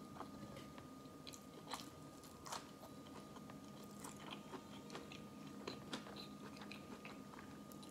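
Faint close-up chewing of a mouthful of sushi roll: scattered small, irregular mouth clicks and bites, over a low steady hum.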